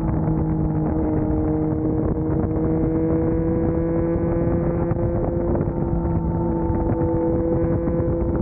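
Sport motorcycle engine under way at highway cruise, running steadily with its pitch rising slightly, over a rush of road and wind noise.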